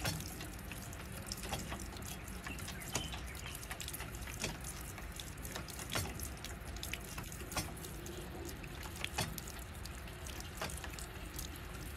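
Water running in a thin stream into a stainless steel basin, a steady trickle with many irregular drips and splashes.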